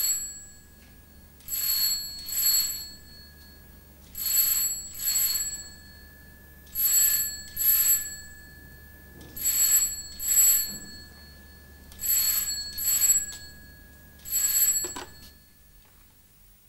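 Rotary desk telephone bell ringing in double rings, ring-ring about every two and a half seconds, five times; a sixth ring is cut off by a click as the handset is lifted.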